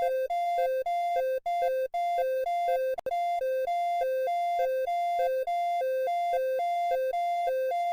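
Electronic emergency-alert alarm: a buzzy synthesized tone alternating rapidly between a lower and a higher pitch, several notes a second, with a brief click about three seconds in.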